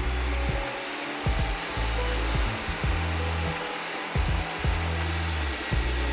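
Background music with a deep bass line and a drum beat.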